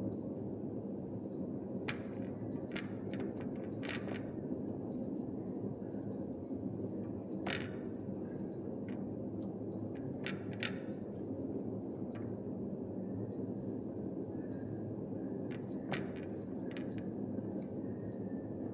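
Chunks of marinated potato, sweet potato and carrot being tossed by a gloved hand in a glass bowl: scattered sharp clicks and knocks of the pieces against the glass, over a steady low background noise.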